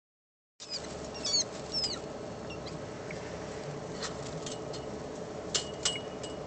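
A baby wild rabbit, held by a cat, gives a few high-pitched squeaks of distress about a second in, over a steady low background hum. A few short sharp ticks follow near the end.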